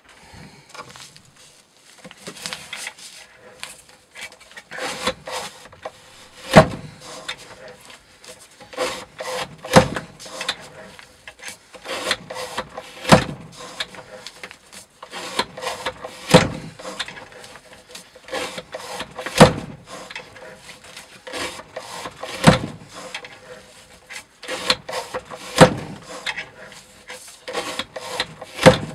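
A Bark River Wilderness Explorer's CPM Cru-Wear steel blade is worked back and forth through rope in a weighted cutting-test rig, rasping on each stroke. A sharp knock comes about every three seconds from about six seconds in.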